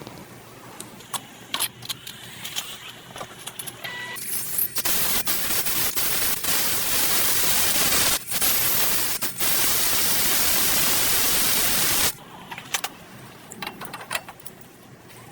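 Light clicks and knocks of parts being handled, then a loud steady spraying hiss lasting about seven seconds, broken briefly twice, that stops abruptly, followed by more small clicks.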